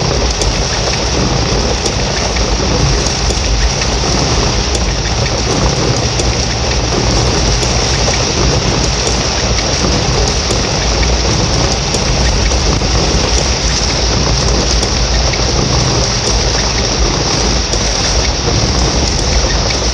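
Heavy rain pouring down in a steady loud rush, with a constant low rumble underneath.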